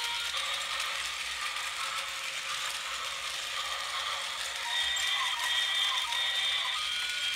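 Battery-powered toy circus train running round its plastic track: the small motor and plastic gears whirring and clicking steadily, with a tinny electronic tune of simple high notes over it.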